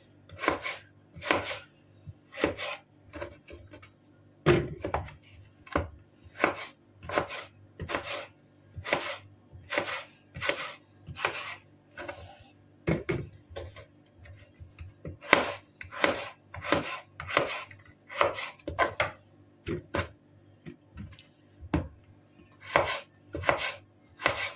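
Kitchen knife cutting raw potato slices into fries on a wooden cutting board: a series of sharp knife strokes through the potato onto the board, roughly one to two a second, with a few short pauses.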